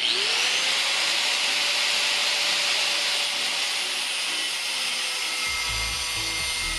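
Power tool spinning up and cutting through a crankcase bolt: its motor whine rises briefly as it starts, then holds steady under a harsh, hissing grind of metal.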